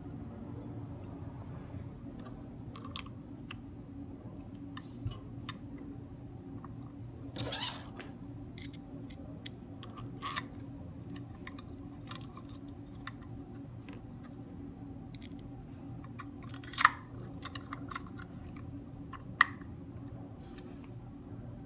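Small clicks and taps of metering pump parts being handled and fitted together by hand, over a steady low hum, with a brief rising squeak about seven seconds in and two sharper clicks near the end.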